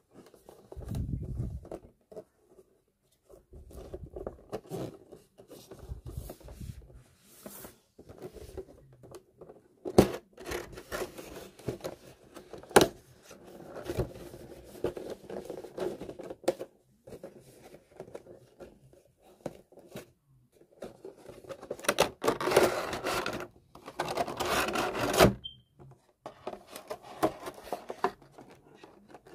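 Cardboard figure box handled and opened by hand: the box and its flaps rub and scrape in short bouts, with a couple of sharp clicks. A louder stretch of rustling comes about three quarters of the way through, as the figure in its plastic bag is drawn out.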